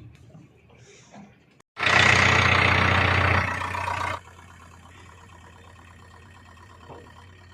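Heavy diesel engine of earthmoving machinery running. About two seconds in a sudden loud, harsh stretch of noise over the engine lasts roughly two seconds. The engine then runs on steadily and much quieter.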